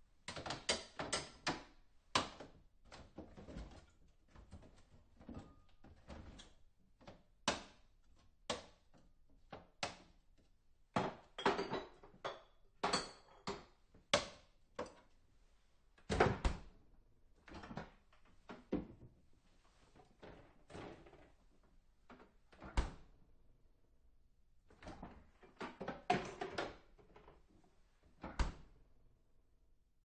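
Someone rummaging in a refrigerator: an irregular string of knocks, clatters and thunks as items and shelves are handled, with a few heavier thumps and some brighter clinks.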